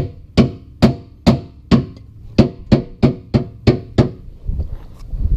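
Repeated hard knocks from the back of a tool handle striking a Ford Crown Victoria near its gas cap, about two to three blows a second, stopping about four seconds in. The blows are meant to jar loose the in-tank fuel pump, which the owner suspects is failing because the car will not start.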